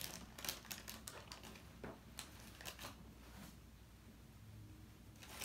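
Faint paper rustling and light clicks as hands sort through stuffed pastries in a paper-lined cardboard takeout box, busiest in the first three seconds.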